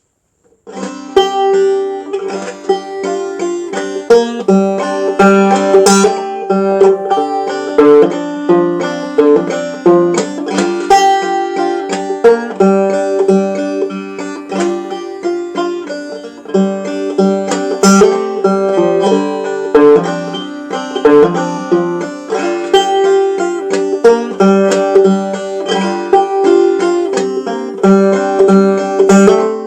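Five-string banjo played clawhammer style: a steady stream of plucked, brightly ringing notes with a regular rhythm, starting about half a second in.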